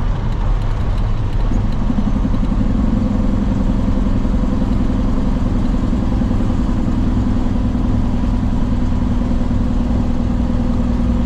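Truck engine running steadily under way, a constant low rumble with a steady hum that comes up about a second and a half in and holds.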